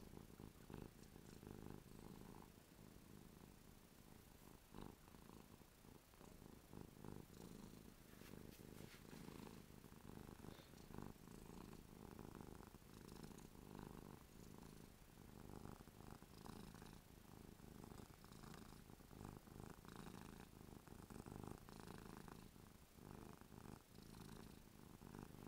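Domestic cat purring steadily and softly, a continuous low, pulsing rumble: a contented purr from a cat so happy she is drooling.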